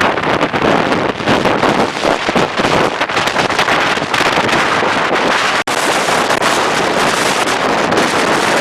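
Strong gusting wind buffeting the microphone in a loud, unbroken rush, with an instant's dropout a little over halfway.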